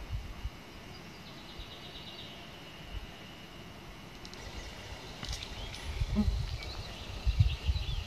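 Small forest birds singing: a short rapid trill about a second in, then scattered high chirps in the second half, with low rumbling underneath.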